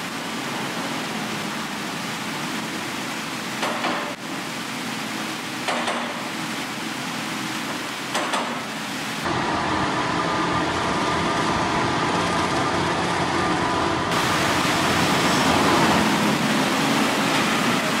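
Steady running of farm machinery, a telescopic loader and a tractor-powered feed mixer wagon, with a few knocks in the first half. About nine seconds in it changes to a closer, deeper drone with a steady hum beside the mixer wagon's tub and augers.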